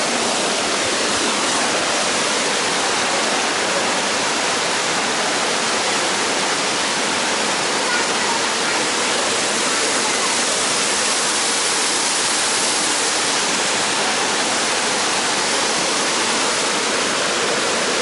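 Steady rush of water from small waterfall cascades spilling over rock ledges into a pool.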